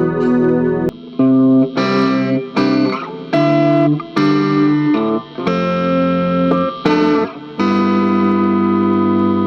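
Electric guitar (a Mexican Fender Stratocaster) played with the fingers through a Hotone Pulze Mini modeling amp: a series of ringing chords with short breaks between them, the last one held and left to ring near the end.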